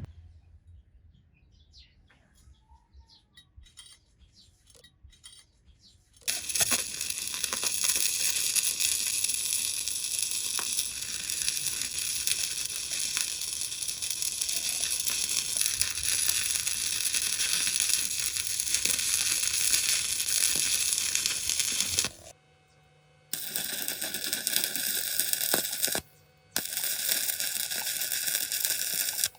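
Stick-welding arc crackling and sizzling steadily, starting about six seconds in after a few faint clicks. It stops briefly twice near the end and strikes again each time.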